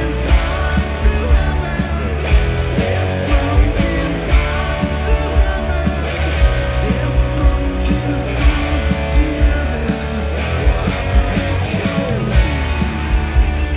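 Live rock band playing: electric guitars, some notes sliding up and down, over bass and drums keeping a steady beat.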